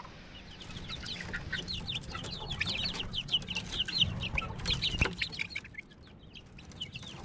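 A flock of month-old native chicken chicks peeping busily: many short, high, falling peeps overlapping, thinning out after about five and a half seconds. There is one sharp knock about five seconds in.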